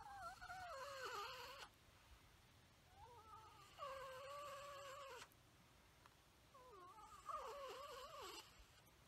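White domestic turkey giving three drawn-out, wavering calls, each lasting about two seconds, with short pauses between them.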